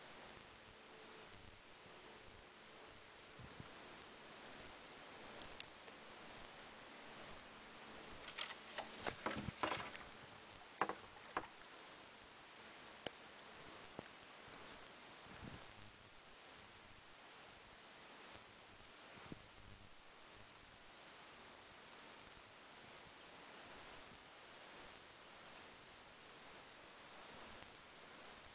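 A steady, high-pitched insect chorus, with a short cluster of faint clicks and knocks about eight to eleven seconds in.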